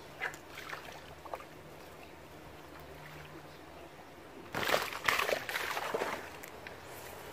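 Water splashing and sloshing for about a second and a half, starting about halfway through, after a few faint clicks.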